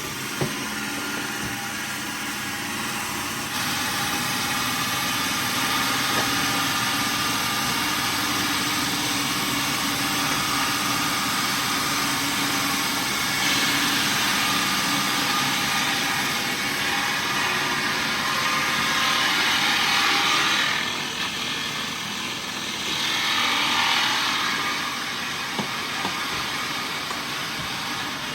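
Heavy machinery running steadily, with louder hissing surges about halfway through and again near the end.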